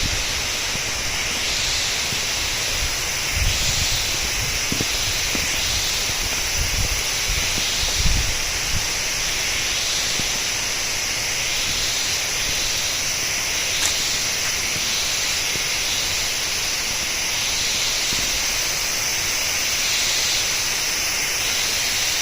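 Steady rushing hiss of Mahua Waterfall's falling water. A few low thumps come between about 3 and 9 seconds in.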